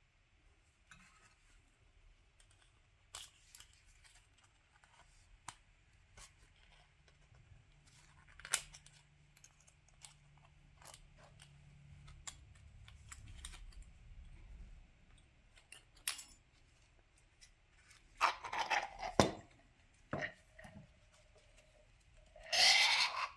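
Small metal tools clicking and scraping on a Bilstein shock absorber as a snap ring is worked out of its groove: scattered sharp clicks at first, then louder scrapes near the end.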